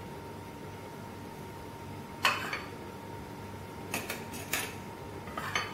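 A metal spoon clinking and scraping against a stainless steel puttu tube and a glass bowl while rice powder is spooned into the tube: a handful of short clinks, the loudest about two seconds in and a cluster about four seconds in.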